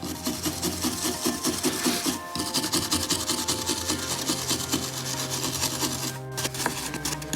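Longmill MK2 CNC router carving wood with a V-bit: a dense scratching and rasping of the cut, mixed with short tones from the machine's motors that change several times a second. A steady low hum joins about four seconds in.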